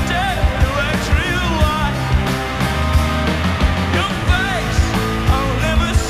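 Rock band playing live: distorted electric guitars, bass and drums, with the drums hitting in a steady driving beat.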